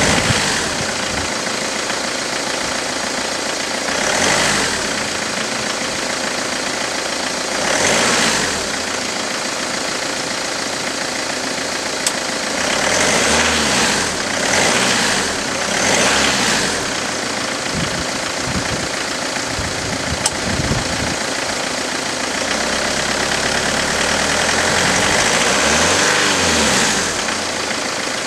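Citroën 2.0 L HDi 90 hp four-cylinder common-rail diesel idling in the minutes after a cold start. Its level swells briefly several times.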